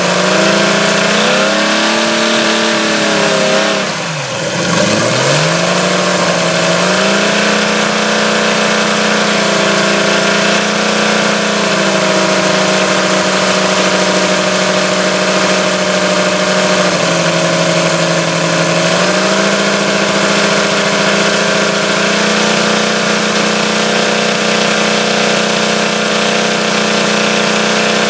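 Evolution 160 radial model-aircraft gasoline engine running on a test stand with its throttle worked by radio: the engine speed drops sharply about four seconds in and picks back up, then holds steady with a short slower stretch past the middle. It runs smoothly on a replacement ignition module while still being broken in.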